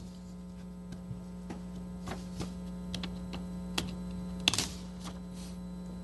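Steady electrical hum on the sound system, with scattered paper rustles and small clicks as sheets of paper are handled next to a desk microphone; the loudest rustle comes about four and a half seconds in.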